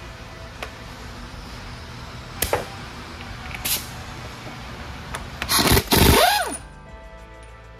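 Pneumatic air hammer running in a loud burst of about a second, beginning about five and a half seconds in, driving against a shaft at the rear bearing bore of an Eaton Fuller 10-speed transmission case. Before it there are a couple of light metal clinks.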